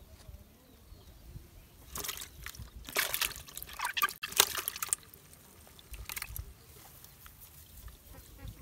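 A small freshly caught fish flapping in shallow water inside a plastic bucket, sloshing and splashing in short bursts, the longest and loudest in the middle.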